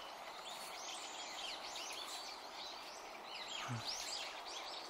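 A flock of long-tailed tits calling: many thin, high chirps overlapping, several a second, over a steady background hiss.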